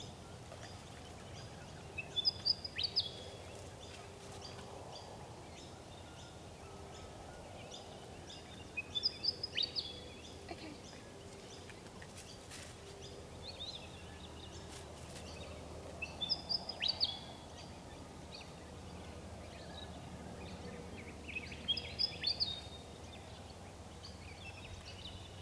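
A bird sings short bursts of sharp chirps, repeating four or five times at intervals of several seconds, over a steady low outdoor background hum.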